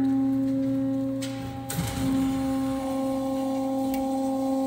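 Steady machine hum at one pitch with a few overtones. Over it, light metallic clicks and a clank of steel gate hardware as a gate is closed, about a second and a half in.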